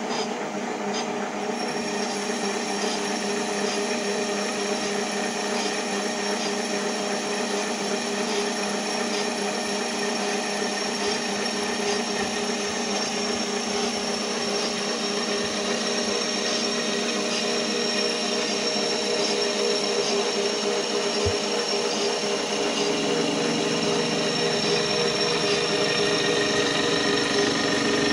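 A small metal lathe running with its tool cutting an aluminum wheel spacer: a steady motor and gear whine over the hiss of the cut. The tone changes near the end.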